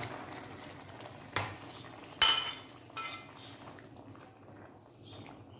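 Metal spatula clanking and scraping against a metal wok while stirring chicken into vegetables and a little broth: a few sharp clanks, the loudest about two seconds in, with a short ring.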